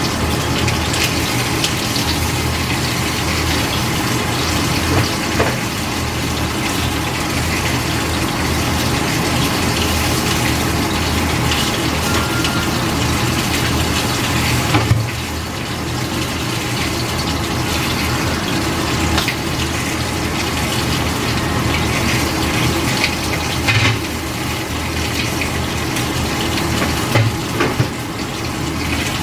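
Water boiling in a stainless steel steamer pot on the stove, a steady bubbling hiss with a few small pops.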